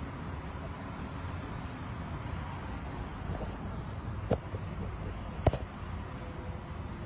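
Steady low rumble of a car's cabin, with two small sharp clicks, one about four seconds in and one about five and a half seconds in.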